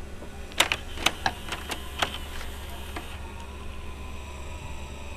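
Toshiba M751 VCR's exposed tape mechanism clicking: about eight quick sharp mechanical clicks within two seconds. From about three seconds in, a faint steady motor whine follows.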